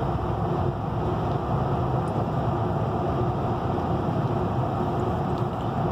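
Steady road noise inside a car's cabin cruising at highway speed: tyre rumble and engine drone, with a faint steady hum.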